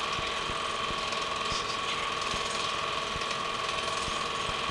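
Home-movie film projector running: a steady mechanical whir with a constant whine and irregular low clicking from the film transport.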